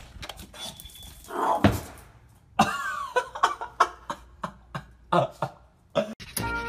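A pug on a tiled floor: a string of short, irregular clicks and knocks, with two brief voice-like sounds, one about one and a half seconds in and one near three seconds. Music starts near the end.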